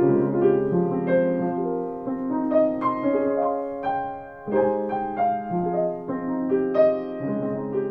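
Piano music: a melody of struck notes over held chords.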